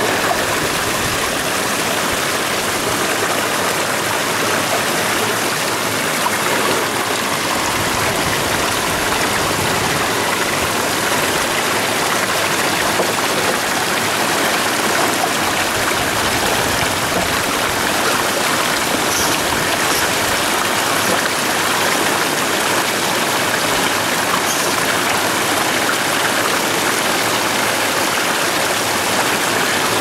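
Creek water rushing and splashing over rocks in a small waterfall, close up and steady throughout.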